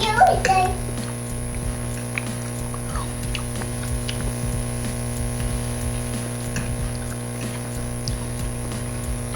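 Steady electrical hum throughout, with faint scattered clicks and small smacking sounds of eating over it.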